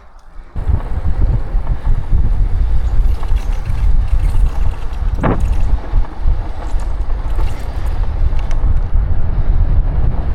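Wind buffeting the microphone of a bicycle rider moving at speed: a heavy, steady low rumble that starts abruptly about half a second in, with a brief click about halfway through.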